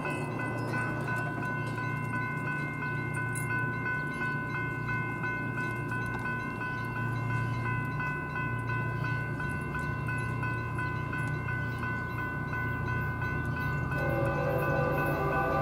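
Approaching Union Pacific diesel freight locomotive running with a steady low rumble, while a railroad warning bell rings steadily and rapidly over it. About fourteen seconds in, further lower ringing tones join and the sound grows slightly louder as the train nears.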